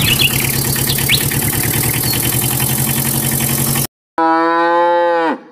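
A vehicle engine runs steadily with a loud hiss, then cuts off suddenly. After a brief gap a cow moos once, a steady call of about a second that drops in pitch at the end.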